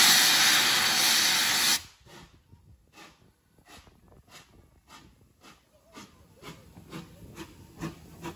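BR Standard Class 2MT steam locomotive's cylinder drain cocks blowing steam with a loud hiss, which cuts off abruptly a little under two seconds in. Soft, evenly spaced beats follow, about two to three a second, slowly growing louder.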